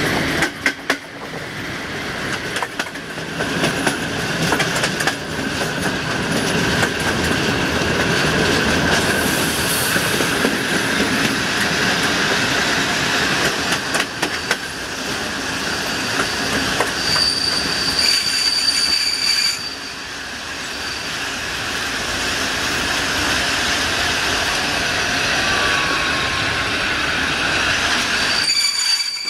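Passenger train coaches running along the track, heard from an open coach window: a steady wheel rumble with clicks over the rail joints. A high wheel squeal rings out for a couple of seconds about two-thirds of the way through and again near the end.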